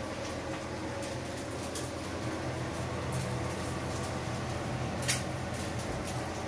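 Steady mechanical hum of a running machine, such as a fan or motor, with a single short click about five seconds in.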